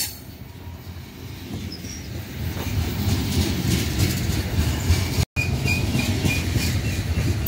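Freight cars of a BNSF train rolling past: a steady low rumble with the clickety-clack of wheels over the rail, building after about two and a half seconds. The cars sound bouncy to the watcher, who takes the train for empty. The sound cuts out for a split second about five seconds in.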